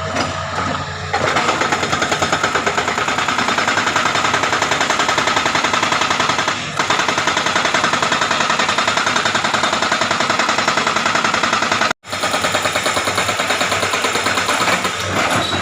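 Hydraulic rock breaker on a Hitachi excavator hammering rapidly and continuously at rock, over the excavator's engine. The hammering starts about a second in and stops for an instant near twelve seconds.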